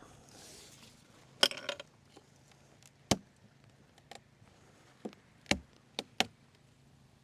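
Beehive parts being handled: a short crackling clatter, then several sharp separate knocks.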